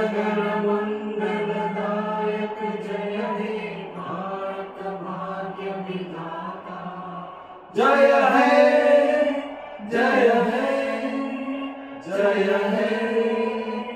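Slow, chant-like singing in long held notes, coming in several phrases; the loudest phrase begins about eight seconds in.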